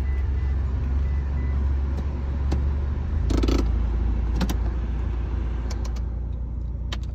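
Car engine and road rumble heard from inside the cabin of a car moving slowly, a steady low drone that shifts pitch about three seconds in. A few short clicks and rattles come through over it.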